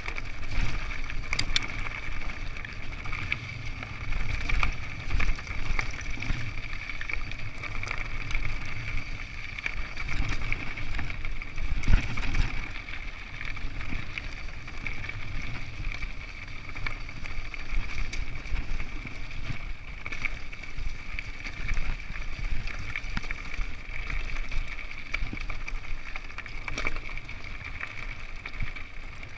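Mountain bike riding down a rocky singletrack: tyres crunching over loose stones, with the bike and camera mount rattling and knocking over the bumps, one hard knock about twelve seconds in. A low rumble of wind on the microphone and a steady high buzz run underneath.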